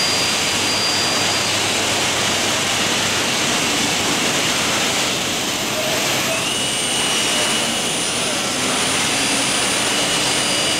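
Four-axis CNC drilling machine running amid the steady din of a busy machinery hall. About six seconds in, a high whine rises briefly and then holds steady, as the spindle spins up.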